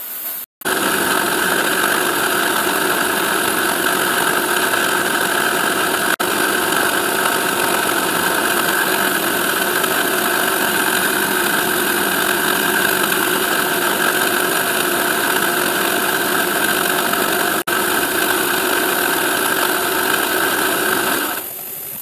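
Milling machine spindle running steadily while a 1 mm carbide dental burr cuts a small V-groove into a metal mould plate: an even whirr with several held tones.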